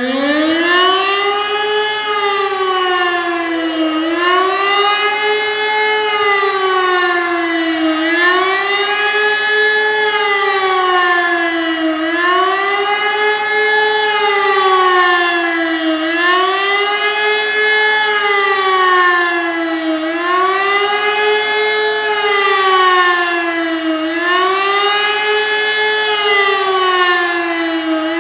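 Elektror E57 electromechanical motor siren sounding a wailing test-alarm signal: its two tones climb at the start, then rise and fall over and over, every few seconds.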